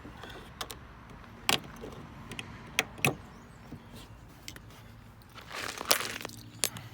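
Plastic trim clips being pried out with a flathead screwdriver and knife: a few sharp clicks and snaps, then a longer scraping rustle with a loud snap about six seconds in as a clip pops free.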